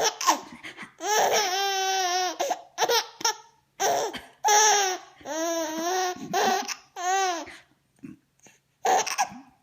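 Baby giggling and squealing in several long, high-pitched bursts with short pauses between them.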